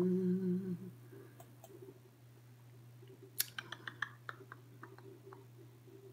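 A short steady hummed note from a woman's voice, stopping about a second in, then a run of about ten small sharp clicks with a faint steady electrical hum beneath.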